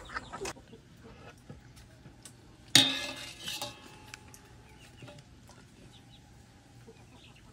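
Light clinks and rustles of a metal spoon against banana leaves as batter is spooned out and the leaf is handled, with a short chicken call about three seconds in.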